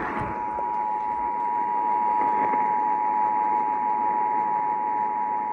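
Emergency Alert System attention signal: the two-tone alert, two steady pitches sounding together without a break, heard over an even hiss.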